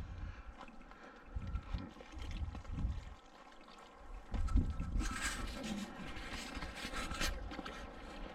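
Wind buffeting the microphone in irregular low gusts, with water splashing and hissing for a couple of seconds about halfway through.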